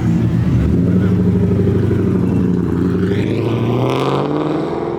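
Car engine running low and steady, then revving hard: its pitch climbs for about a second and a half starting a little past halfway and drops back near the end, as a car accelerates out of a car meet.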